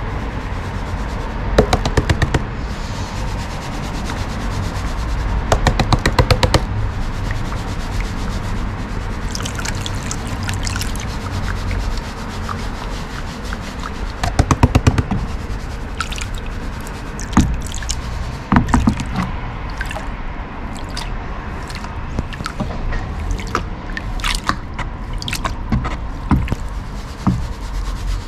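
Gold panning: water sloshing and trickling in a gold pan, with several bursts of quick rattling as gravel and stones knock against the pan.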